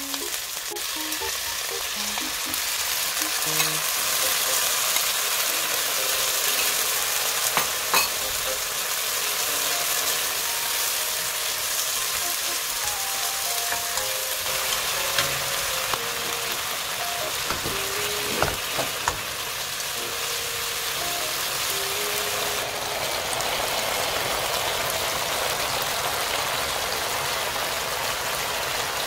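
Shishito peppers and garlic sizzling in a bubbling seasoning sauce in a nonstick frying pan while a spatula stirs them: a steady hiss like a rain shower, with a few sharp clicks of the spatula against the pan.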